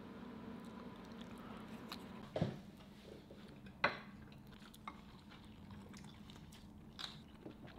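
Quiet eating sounds at a table: chewing, with a few sharp knocks and clinks of wooden chopsticks and ceramic bowls, the two loudest about two and a half and four seconds in, over a faint steady hum.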